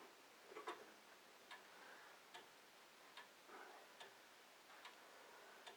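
Grandfather clock ticking faintly and evenly, a sharp tick a little more often than once a second.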